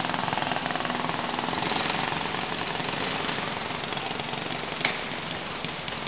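Small kid kart engines running on track, a dense, rapid buzzing rattle. A single sharp click sounds about five seconds in.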